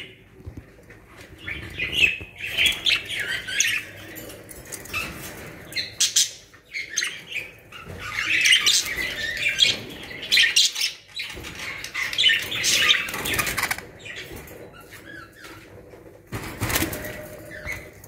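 Budgerigars chirping and chattering in several bursts, with wing flapping.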